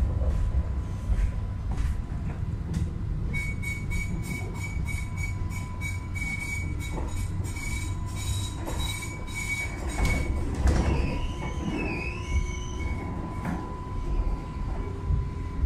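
Sydney light rail tram (Alstom Citadis) running along street track with a steady low rumble and a steady whine. From about three seconds in, its wheels squeal on the curving rails with a high, rapidly pulsing tone. Near the end the pitch wavers up and down, and the squeal stops a couple of seconds before the end.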